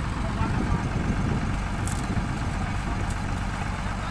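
Heavy diesel engine of the salvage winch machinery running steadily, a low continuous drone.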